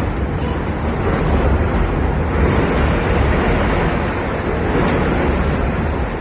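Loud, continuous rumbling din that swells a little about halfway through: a container ship's hull grinding into steel gantry cranes and bringing one down, mixed with the churning of its wake.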